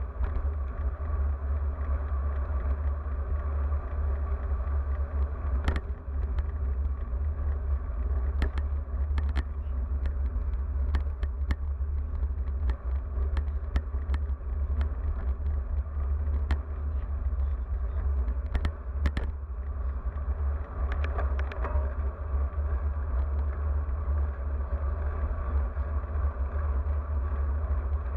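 Wind buffeting the microphone of a bike-mounted action camera on a moving road bike, a steady low rumble over tyre and road noise, with scattered sharp clicks and knocks from bumps in the road.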